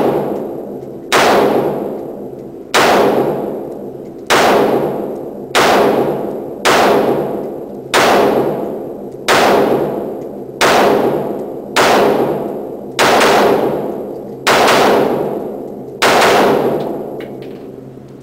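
A firearm fired about a dozen times at a steady pace, one shot every second and a half or so. Each shot has a long echoing tail that fades before the next.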